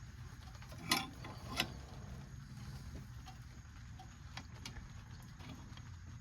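Two sharp metallic clicks about a second in, then a few faint ticks: an open-end wrench clinking on a C-clamp's screw as it is turned in short strokes to slowly push a brake caliper piston back.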